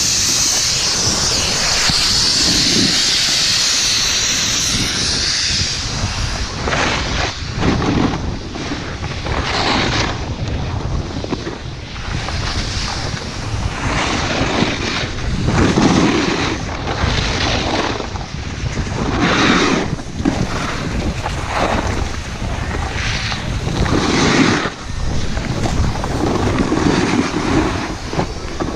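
Wind rushing over the microphone while snowboarding, with the board's edges hissing and scraping through snow in surges every second or two as it turns.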